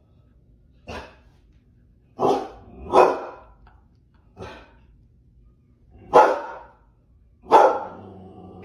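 A husky-type dog barks six short barks, spaced irregularly about one to two seconds apart; the first and fourth are fainter than the rest.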